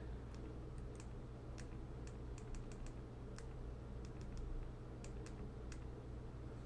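Irregular soft clicks, about two a second, of a Ledger Nano X hardware wallet's two buttons being pressed over and over to enter its PIN, over a steady low hum.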